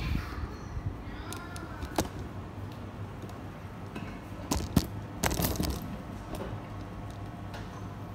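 Scattered light clicks and taps of small handheld repair tools being handled and set down on a workbench, a few in quick pairs and a short cluster about five seconds in, over a faint steady hum.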